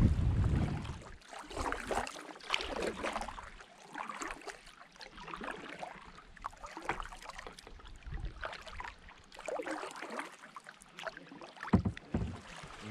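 Kayak paddles dipping and splashing in calm river water, in irregular strokes, with water dripping and lapping around the hulls. Wind buffets the microphone in the first second, and a louder thump comes near the end.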